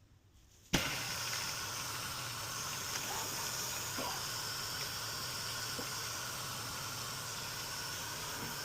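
Electrolux washing machine's water inlet valve clicks open about a second in, and water rushes into the washer with a steady hiss as it fills.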